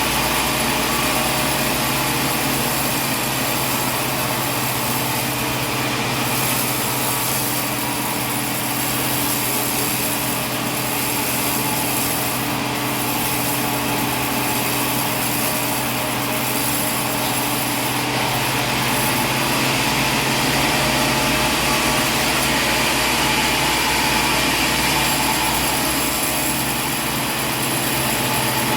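Sawmill machinery running steadily with a loud, even hum and hiss.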